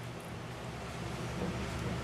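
Steady hiss of a gas burner under a pot of simmering soup, with a faint low hum beneath it.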